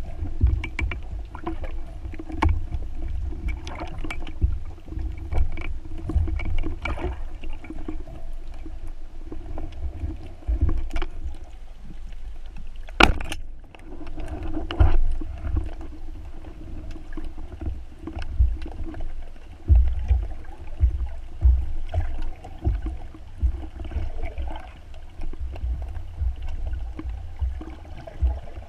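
Underwater water noise: water rushing and buffeting the camera housing in uneven low thumps, with scattered clicks and one sharp, loud click about halfway through.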